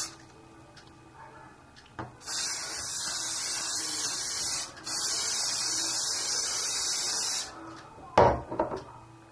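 Aerosol hairspray can spraying onto a hand in two long hisses of about two and a half seconds each, the first starting about two seconds in, with a brief break between them. A loud clatter of a few sharp knocks follows about eight seconds in.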